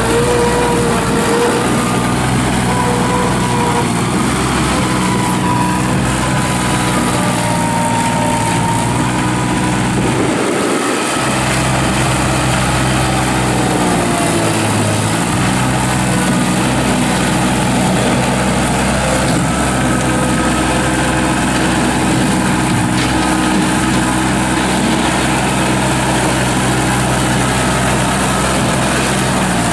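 Kubota diesel engine of a 1986 Bobcat 643 skid steer loader running steadily. Its note shifts briefly about a third of the way in and again near the middle.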